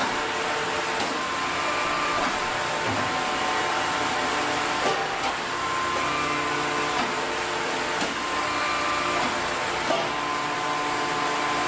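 Factory machinery running steadily: a continuous mechanical whir with humming tones that change pitch every second or so.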